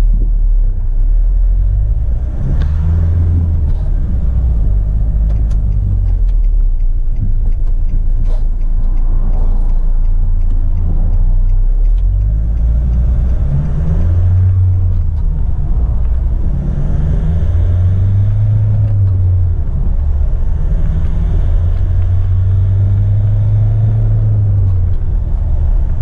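A 2015 Nissan NT400 Cabstar's diesel engine, heard from inside the cab, pulling away and accelerating. The engine note rises and drops several times as it goes up through the gears, then runs steadier near the end.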